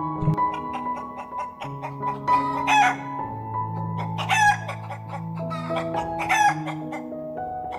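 Hens clucking, with three louder drawn-out calls about two and a half, four and a half and six and a half seconds in, over background music with sustained notes.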